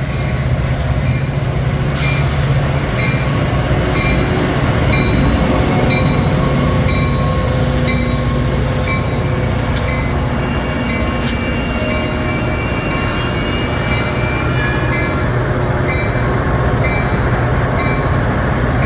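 A train rolling past on the rails: a steady, loud rumble of wheels and cars, with short high squeaks recurring about every half second.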